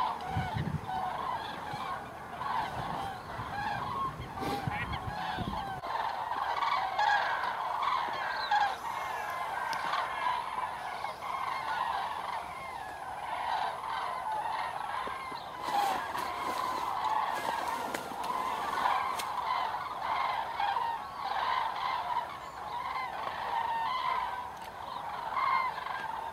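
A large flock of common cranes calling, many trumpeting calls overlapping without a break.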